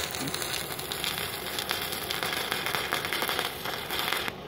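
Stick (MMA) welding arc from a 2 mm electrode at about 39 amps on thin steel plate, crackling steadily, then cutting off suddenly near the end as the arc is broken.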